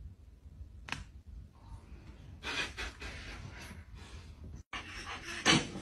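A dog panting in short breathy spells, with a single sharp click about a second in and a louder breath near the end.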